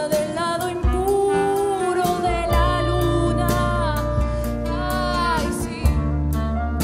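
A live band playing: a woman's voice singing long, gliding notes over electric bass, guitars and drums, with cymbal strokes at a steady beat.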